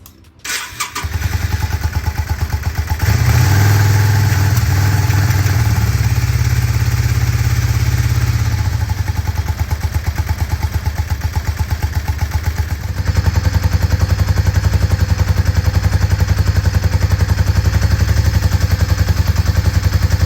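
Yamaha V-Star 650's V-twin engine starting about half a second in, then running at idle with the airbox off and a steady pulsing beat. The engine speed rises about three seconds in, eases back, and picks up again around thirteen seconds in, as the idle is set by turning the idle screw after a carburettor rebuild.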